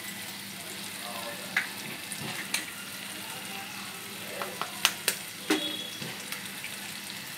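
Onion, capsicum and tomato masala frying in oil in a pan with a steady sizzle, broken by several sharp cracking taps as eggs are broken over the pan, the loudest cluster about five seconds in.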